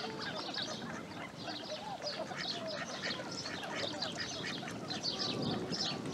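Ducks calling, with a dense chatter of short, high bird calls over the top.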